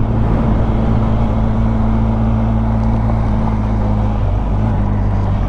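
Benelli TRK 502X's parallel-twin engine running steadily under load as the motorcycle climbs a gravel road, with a steady rush of wind and road noise; the engine note shifts about four seconds in.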